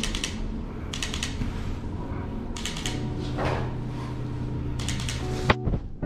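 Canon EOS R camera shutter firing in short bursts of several rapid clicks, four bursts in all, with a sharper knock near the end.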